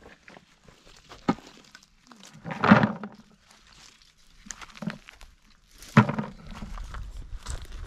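Acorns being gathered by hand from dry oak leaf litter and dropped into a plastic bucket: separate knocks and short rustles of dry leaves, the loudest about three and six seconds in, with shuffling steps between.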